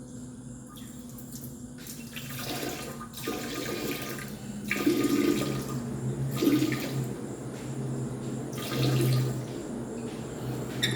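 Running water splashing unevenly, starting about two seconds in and swelling and dipping several times, over a low steady hum.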